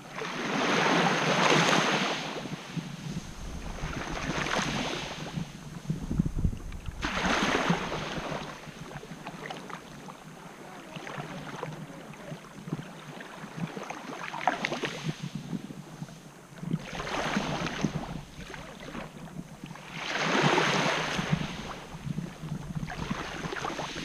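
Small waves washing up and back on a beach of coarse white quartz grains, each wash swelling and fading every few seconds.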